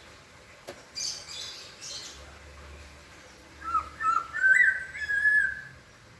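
Poksay (laughingthrush) calling: a few short, harsh, high chattering notes about a second in, then from about four seconds a loud run of clear whistled notes that slide up and down and end in a longer held note.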